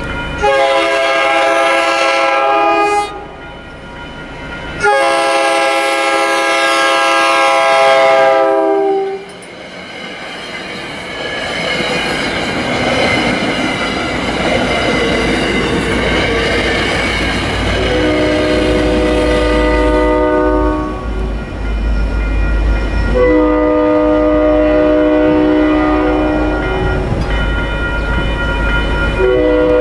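Locomotive multi-chime air horn sounding a series of long blasts for a grade crossing. Between the blasts comes a loud stretch of train rumble and rail clatter.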